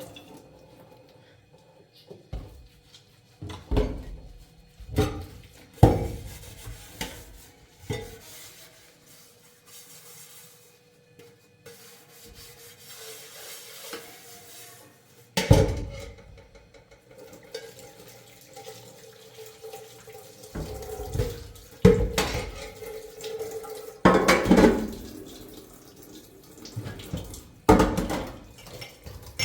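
Washing up: dishes and pots clattering in irregular knocks, with water running for a stretch in the middle.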